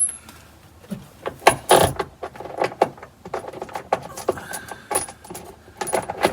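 Loose metal hand tools, such as sockets, clinking and rattling as they are handled, with a run of quick metallic clicks and a few brighter rings.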